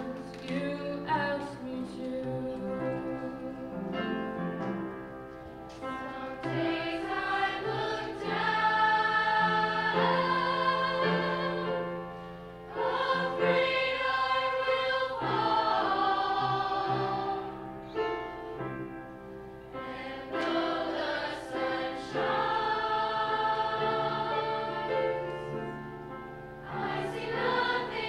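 Youth choir singing, holding long notes in phrases, with brief breaks about twelve seconds in and again near nineteen seconds.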